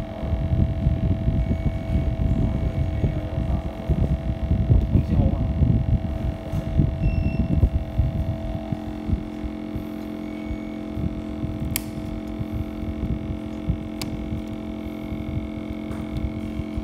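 Steady electrical hum with low rumbling noise that eases about halfway through, and two sharp clicks a couple of seconds apart later on.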